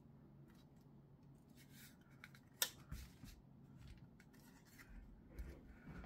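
Near silence with faint handling of a Gigabyte RTX 2070 Super graphics card as it is turned over and laid down on a desk mat: a few soft clicks and rustles, with one sharp click about two and a half seconds in.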